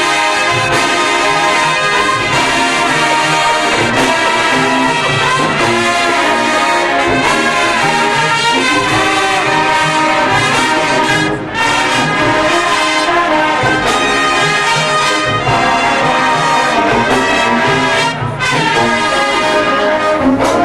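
High school marching band playing loud, full brass music, with trombones and trumpets to the fore. The playing breaks off briefly twice, about eleven and eighteen seconds in.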